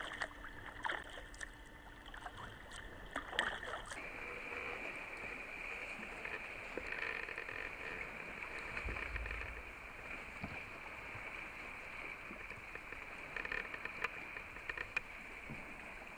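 Kayak paddling on open water: water lapping and splashing at the hull and paddles, with scattered small clicks and drips. The background changes abruptly about four seconds in.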